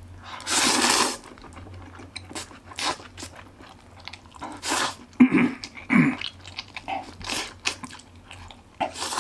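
A person eating Sichuan-style black-bean-sauce noodles (jjajang): a long slurp of noodles about half a second in, then chewing with wet smacks and clicks, and another slurp starting near the end.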